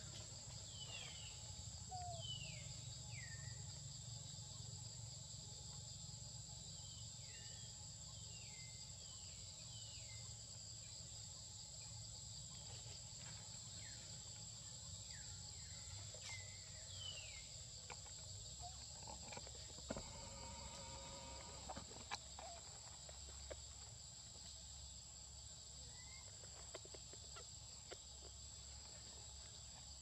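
Faint outdoor ambience: insects keep up a steady high-pitched drone, while short falling chirps repeat about once a second through the first half, with a few soft clicks near the middle and later.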